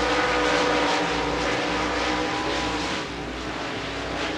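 Dirt modified race cars' V8 engines running hard around the track, a steady drone of engines that dips slightly about three seconds in.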